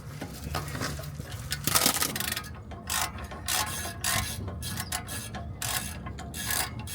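Socket ratchet wrench clicking in quick runs while a socket turns a brake caliper bolt. A louder burst of noise comes about two seconds in.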